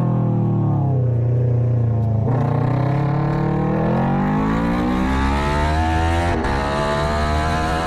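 Racing motorcycle engine heard from on board: the revs fall for about two seconds as the rider slows, then climb steadily under hard acceleration, with a quick gear change about six seconds in.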